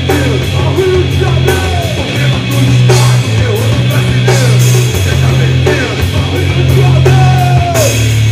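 Live rock band playing loudly: electric guitars and bass over a drum kit, with low notes changing every second or so under a steady beat of drum and cymbal hits.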